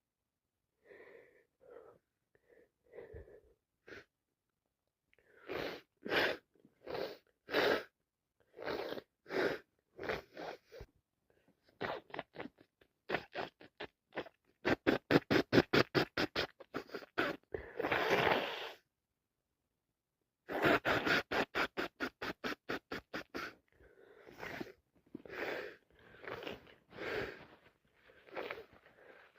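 A woman with a cold sneezing over and over between sharp catches of breath. Some of it comes in quick strings of about five short bursts a second, with a longer, harsher burst in the middle and a short pause after it.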